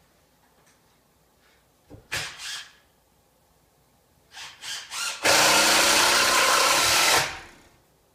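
Cordless drill driving a screw into wood: a few short trigger bursts, then one steady run of about two seconds that winds down near the end.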